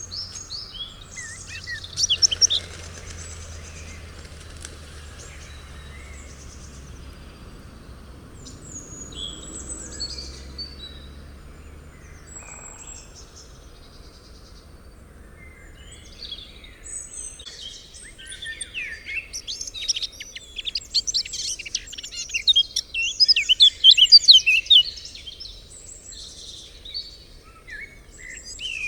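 Evening forest ambience: several birds calling and singing in short chirps and trills, building to a busy stretch of rapid song about two-thirds of the way in. A faint low rumble lies underneath during the first half.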